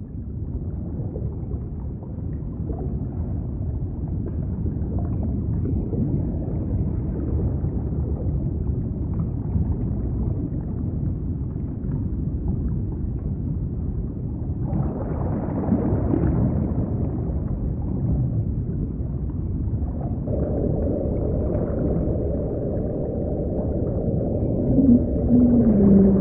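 Underwater ocean soundscape: a deep, steady rumble that fades in at the start. About twenty seconds in a steady droning tone joins it, and near the end comes a falling, whale-like call.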